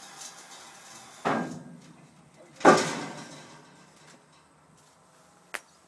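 Two heavy bangs about a second and a half apart, the second the louder, each dying away with a rattle, as the excavator is dropped down fast onto the trailer to jerk it free of the tire it is hung up on. A sharp click near the end.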